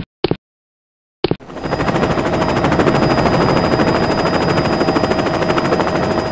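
Sound-effect track for a stick-figure animation: two brief clipped snippets, then a fast, steady mechanical rattle that fades in about a second and a half in and keeps going.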